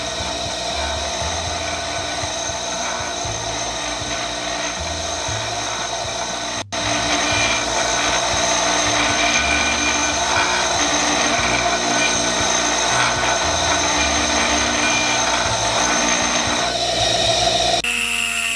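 Bench grinder running while an abrasive dressing stone is held against and tracked across the face of its spinning wheel: a steady grinding rub. This is the wheel being dressed, exposing sharp grains and truing it round. The sound breaks off briefly about a third of the way in and comes back louder, and music takes over near the end.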